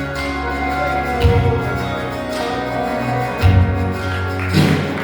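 Worship band music with no singing: sustained bass and chords, with a few sharp percussive hits.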